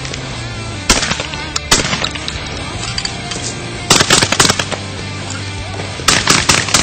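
Beretta Xtrema2 semi-automatic 12-gauge shotgun firing: two single shots, then two fast strings of about five or six shots each, the second string near the end. Background music plays underneath.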